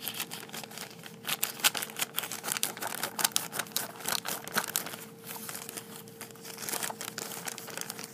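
A plastic mailing envelope crinkling and crackling irregularly as it is cut open with scissors, with a short lull about halfway through.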